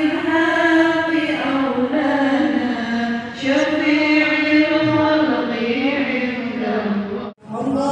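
Women's voices chanting Arabic devotional text in a slow, drawn-out melody, a manaqib recitation. The chant cuts out abruptly for a moment near the end.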